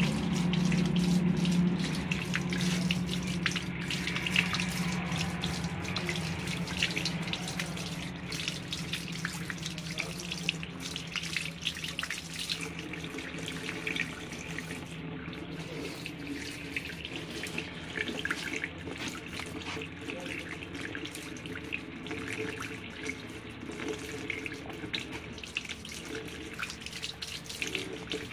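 Water running from a tap into a washbasin, splashing and spattering as radishes are rinsed and rubbed clean under the stream by hand. A low steady hum fades away over the first couple of seconds.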